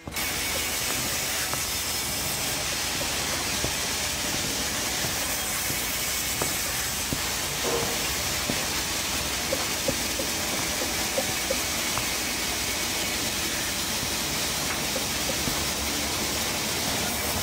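Vertical band sawmill running and ripping a log lengthwise: a steady, even hiss of the blade through the wood that holds the same level throughout.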